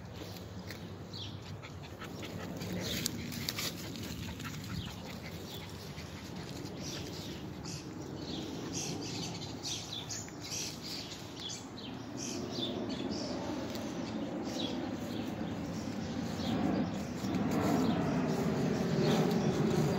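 A puppy giving many short, high-pitched yips and whimpers over several seconds. A rustling noise grows louder near the end.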